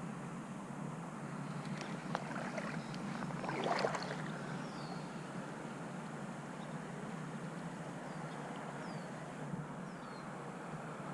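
Steady rush of flowing river water, with a brief splashing swish about four seconds in and a few faint, short, high falling chirps.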